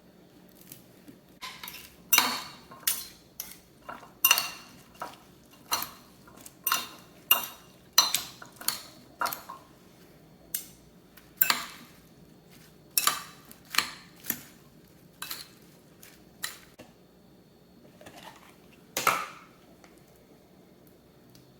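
Cutlery clinking against a dish: a long run of short, irregular taps with brief pauses between them.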